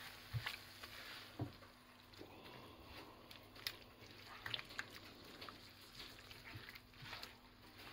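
A spatula stirring a wet pan of beans, onions and tomatoes on the hob, with a soft sizzling hiss and scattered scrapes and taps against the non-stick pan, two louder knocks in the first second and a half.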